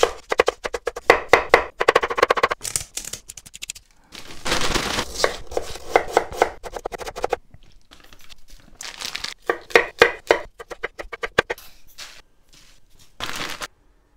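Kitchen knife chopping shredded cabbage on a wooden cutting board in quick runs of strokes, about four a second. About four seconds in there is a stretch of rustling noise, then more runs of chopping.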